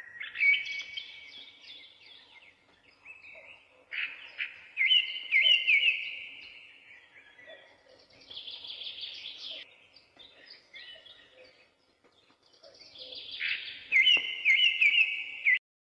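Birds chirping and twittering in short phrases of quick rising and falling notes, loudest about five seconds in and again near the end, where the sound cuts off suddenly.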